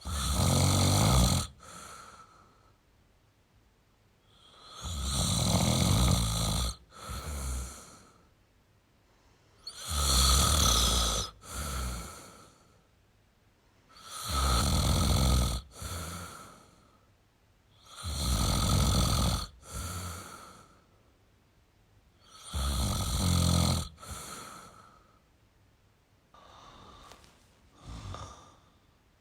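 A person snoring in a steady rhythm, about one breath every four seconds: each a loud rasping snore followed by a shorter, softer one. Near the end the breaths turn much quieter.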